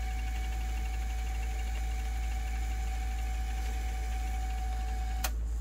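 Alpine 7385 car stereo's audio output giving a steady hiss and low hum with a thin steady whistle. The whistle and hiss cut off abruptly about five seconds in.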